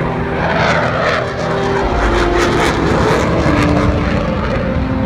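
Propeller-driven aircraft flying during an air show display: a loud, continuous engine and propeller drone whose pitch shifts up and down.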